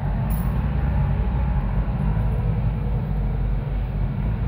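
Steady low engine rumble of an off-road vehicle driving along a dirt trail.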